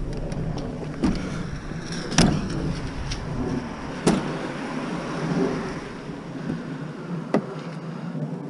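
Four sharp knocks and bumps as a large, heavy flat-screen TV with a metal back is carried and handled, over a steady rushing noise.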